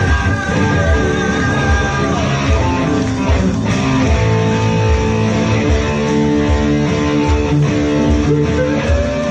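Band playing an instrumental passage with no singing: long held melody notes over a steady low beat, with one note bending upward near the end.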